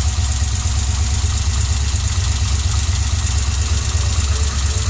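Idling 5.7 L LS6 aluminum-block V8 with adjustable shaft-mount rockers, running steadily with a lot of mechanical clatter, which the owner takes for excess valvetrain noise.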